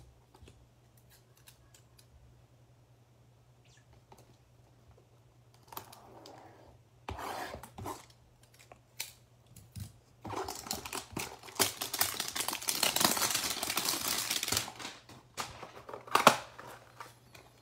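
A cardboard trading-card hanger box being handled and torn open: scraping and tearing of card stock, densest for several seconds past the middle, with a sharp snap near the end.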